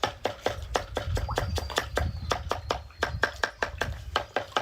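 Rapid, even chopping of a knife on a cutting board, about five strokes a second, over a low rumble.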